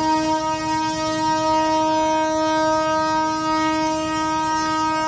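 Train horn held as one long, steady, unbroken tone over the low rumble of a passing train.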